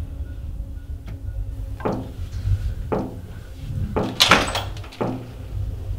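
A series of heavy thuds about once a second over a steady low rumble. The loudest thud comes about four seconds in.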